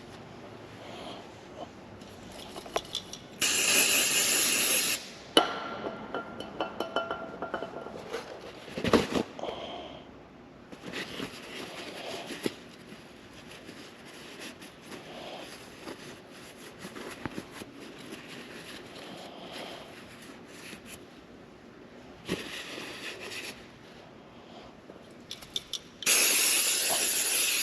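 Aerosol brake cleaner sprayed onto motorcycle brake parts in four hissing bursts, the last and longest near the end as the can runs out. Light metal clinks and scrapes between the bursts.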